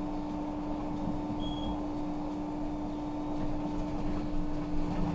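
Cabin sound of a trolleybus under way: a steady electrical hum over road and running noise. A short high tone sounds about a second and a half in.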